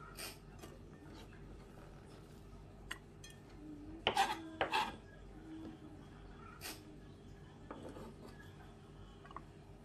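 Chef's knife knocking and scraping on a wooden cutting board as red bell pepper is diced, a few scattered taps with a louder cluster about four seconds in.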